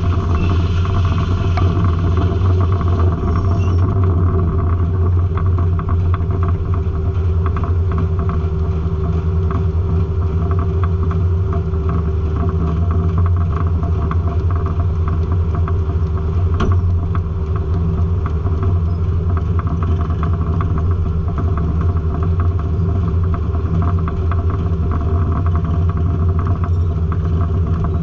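Circle sawmill running: a steady, loud mechanical drone from its power unit and spinning blade, with a low hum and a few steady tones over it. A brief extra hiss in the first couple of seconds.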